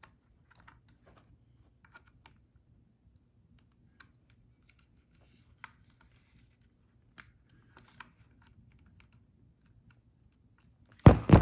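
Faint, scattered plastic clicks and taps as a test lead's banana plug is pushed and worked against the COM jack of a handheld clamp meter, the plug not going in while a cover is still in the way. Near the end comes a much louder thump, twice in quick succession.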